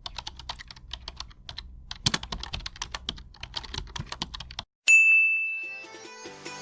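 Rapid, irregular key clicks of typing for about four and a half seconds, then after a brief pause a single loud bell ding that rings and fades over about a second. Faint music notes start under the fading ding near the end.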